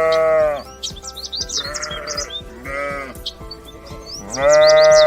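A farm animal bleating four times: a long call at the start, a shorter wavering one and a brief one in the middle, and another long call near the end.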